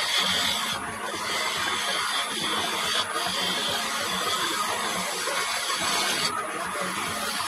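Turning gouge cutting a spinning end-grain wooden candlestick on a Record Power wood lathe: a steady scraping hiss of the tool on the wood, briefly easing about a second in, at three seconds and near six seconds as the cut lightens. The sound is sped up threefold.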